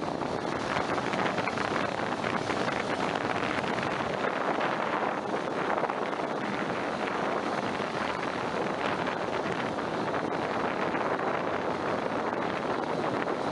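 Toyota 1KZ diesel-powered jet boat held at full thrust against a tow line in a bollard pull test: a steady rush of water from the waterjet's spray plume over the engine running under load. Wind buffets the microphone.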